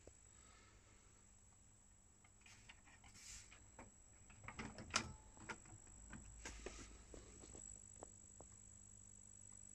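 Faint mechanical clicks from an Akai CS-F110 cassette deck as its eject button is pressed and the cassette door opens, the sharpest click about five seconds in; otherwise near silence.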